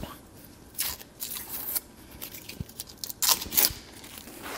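Hand ratchet clicking in two short runs, about a second in and again about three seconds in, as a nut on a truck's front suspension is tightened.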